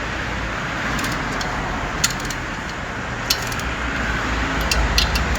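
A few short, sharp metallic clicks over a steady background hum: a click-type torque wrench signalling torque reached as the clutch pressure plate bolts are tightened.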